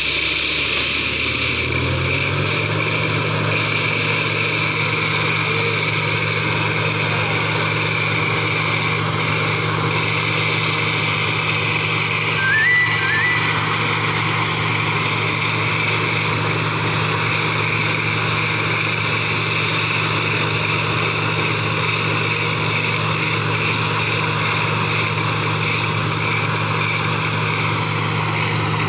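Diesel engine of a truck-mounted Atlas Copco air compressor on a borewell drilling rig, speeding up over the first couple of seconds and then running steadily at high speed. A brief high squeak sounds near the middle.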